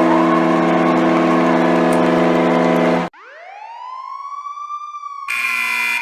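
Custom hockey goal horn blaring a steady low multi-note chord, cut off about three seconds in, followed by a siren winding up in pitch and holding. Near the end a short burst of the horn chord with a noisy hiss cuts in.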